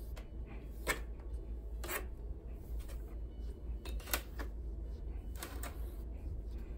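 A hand handling a straight human-hair wig on a mannequin head: several brief swishes and rustles of the hair, roughly a second apart, over a low steady rumble.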